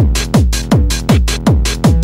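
Hardtek/tribe-style hardcore techno track played from vinyl: a heavy kick drum hitting about three times a second, each hit falling in pitch.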